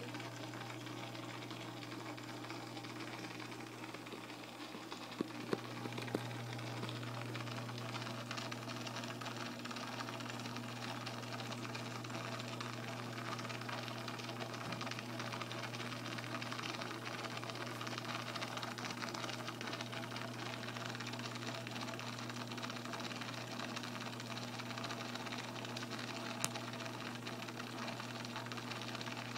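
Aquarium equipment running: a steady low electrical hum under a constant hiss of moving water, with a few light clicks.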